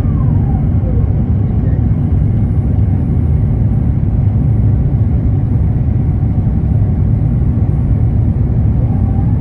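Jet airliner cabin noise during the climb after takeoff: a steady, loud low rumble of the engines and rushing air, heard from inside the cabin. A faint tone glides down just after the start and another rises near the end.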